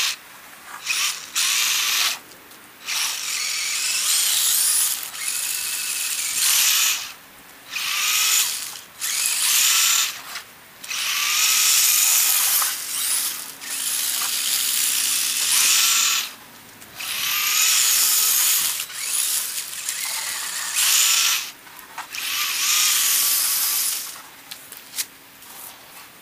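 Electric motor and drivetrain of a radio-controlled plow truck whining in repeated runs of a few seconds each, with short pauses between them as it starts and stops.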